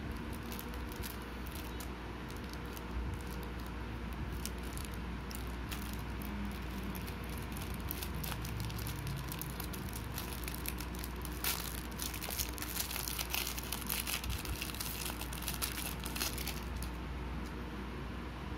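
Clear plastic wrapping crinkling and crackling as small perfume travel atomizers are handled and unwrapped from their sleeves. The crinkling is busiest for several seconds in the second half.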